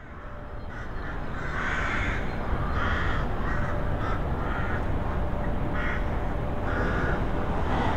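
Crows cawing repeatedly, with irregular harsh calls over a steady low outdoor rumble.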